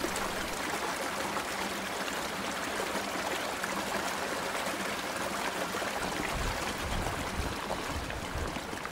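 Small river running over a shallow riffle: a steady rush of water. About six seconds in, a low rumble of wind on the microphone joins in.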